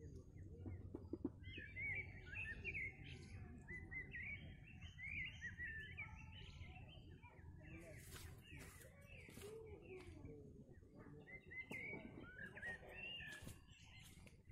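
Songbirds chirping and singing in many short, quick notes over a steady low background noise.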